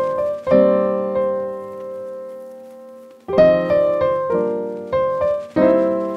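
Background music on piano: chords struck and left to ring out, one held for nearly three seconds before another run of chords begins.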